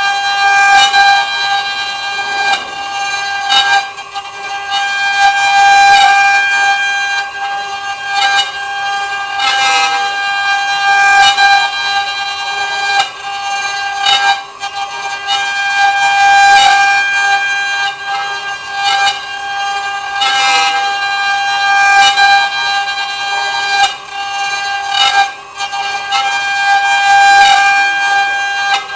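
CNC wood router spindle whining steadily while cutting wood, its loudness swelling and dipping as the bit works through the material, with occasional brief crackles.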